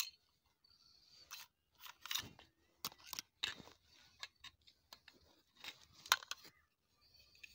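Pistol magazines being handled: a string of irregular sharp metal clicks and short scrapes, the loudest about six seconds in. No shots are fired.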